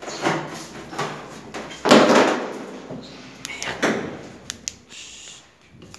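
A series of knocks and scrapes, the loudest a harsh scraping burst about two seconds in, with sharp clicks near the end.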